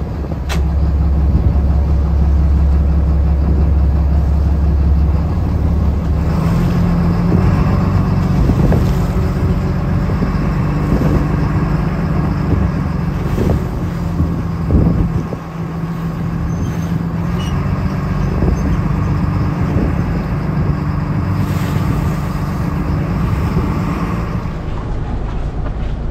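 Small fishing boat's engine running steadily under way, with water splashing against the hull. The engine's low note shifts about five seconds in.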